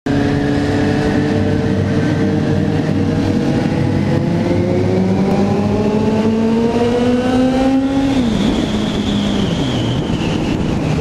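Suzuki GSX-S750 inline-four motorcycle engine under way, its pitch rising slowly and steadily for about eight seconds, then falling away, with a lower engine tone dropping again near the end.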